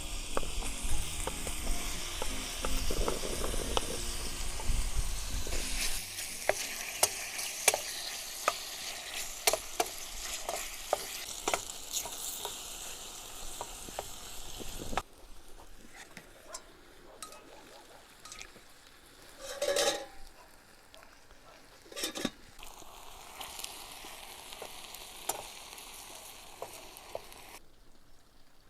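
Food sizzling and frying in a pan, with a utensil clicking and scraping against it as it is stirred. The sizzle drops to a quieter level about halfway through, and there are a few louder scrapes near the end.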